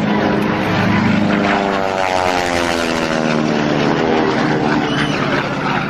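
Piston engine and propeller of a small aerobatic plane flying a low pass, a steady drone whose pitch falls slightly as it goes by.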